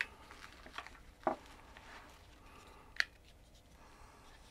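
Handling noises as a folded DJI OM5 gimbal is put into its soft carrying pouch: faint rustling of the fabric, a dull knock about a second in and a sharp click at about three seconds.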